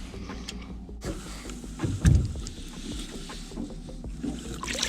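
Steady low rumble of wind and water around a small fishing boat, with a few light clicks and a dull thump about two seconds in.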